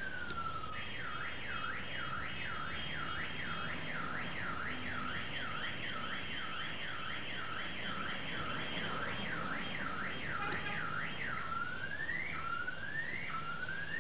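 Electronic siren. A slow falling wail changes about a second in to a fast yelp, rising and falling about twice a second. Near the end it switches to short rising sweeps about once a second.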